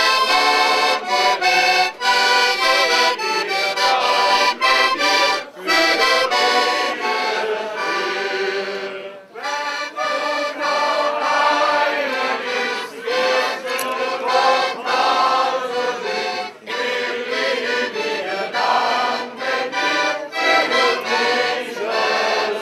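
Piano accordion playing a traditional tune.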